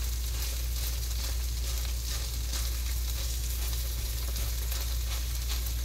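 Mashed potatoes sizzling and crackling steadily in a frying pan with browning onions, garlic and butter, as they are pressed down with a fork. A low steady hum runs underneath.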